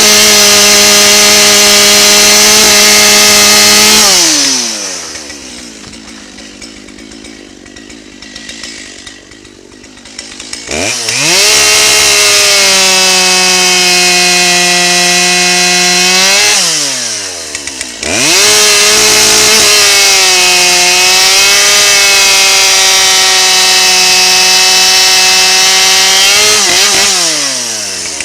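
Dolmar two-stroke chainsaw with a freshly sharpened chain bucking red oak logs, cutting at full throttle three times. Between cuts the engine drops back to idle, and its pitch sags slightly under load in the cut.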